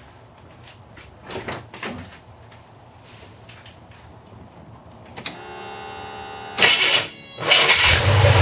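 A couple of faint thumps, then from about five seconds in a steady whine, a loud burst of cranking, and the pickup's Chevy small-block V8 catching and starting to run near the end.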